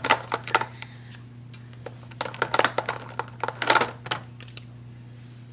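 Plastic Crayola Scentsations markers clicking and clattering against one another as a child rummages through a cup of them, in a few short spells of rattling, over a faint steady low hum.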